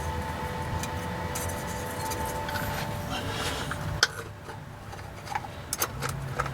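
A spin-on oil filter being turned onto its mount by hand, with faint rubbing and a few sharp clicks near the end.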